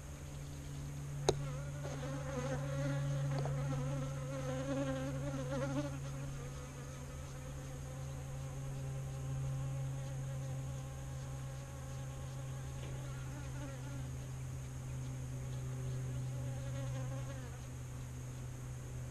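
Honeybees buzzing close past the microphone, the pitch wavering as they come and go, with a sharp tick about a second in.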